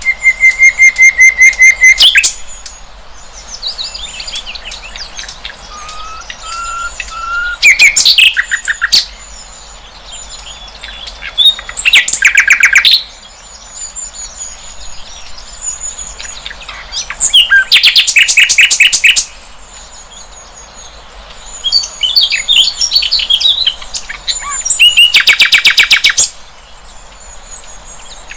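Sikatan londo flycatcher singing: loud, fast trilled phrases of one to two seconds come about every five seconds, with softer, varied chirping notes between them.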